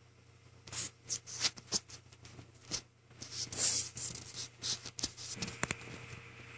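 Hands handling the bare hard drive and its enclosure: a series of short rustles, scrapes and clicks over a low steady hum. The drive itself has stopped spinning. A faint high steady tone starts near the end.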